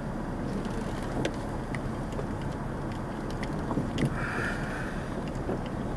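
Vehicle heard from inside the cab, rolling slowly over a rough dirt lot: a steady low engine and road rumble with a few small clicks and rattles.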